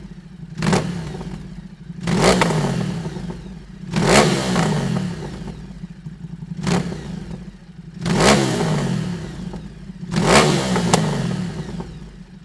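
Ducati Multistrada 950S's 937 cc L-twin engine through a Dominator aftermarket exhaust, revved in about seven sharp throttle blips roughly every two seconds, each one falling back to idle.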